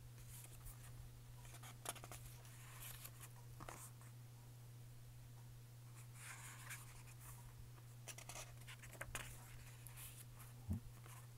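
Faint rustling of paper pages being turned and handled in a hardcover songbook, in several short bursts with a few soft clicks, and a short knock near the end, over a steady low hum.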